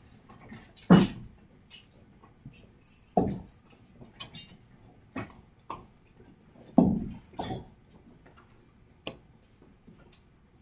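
Scattered knocks and thumps of students getting up and moving about a classroom, handling chairs and notebooks. There are about five separate knocks, the loudest about a second in and near seven seconds in.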